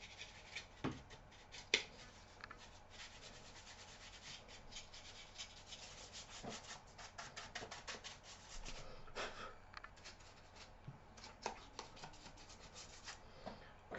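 Faint rubbing and quick plastic clicks of hands handling a laptop's plastic case while the battery is fitted back in, with a few sharper ticks near the start.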